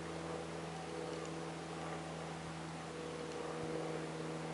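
A steady low hum with a few held tones and a noisy hiss above it; no gunshots.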